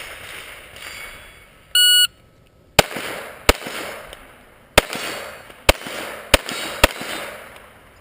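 Shot timer beeps once, then six pistol shots follow at uneven intervals over about four seconds as a shooter runs a string at steel targets. The shots are likely .22 rimfire.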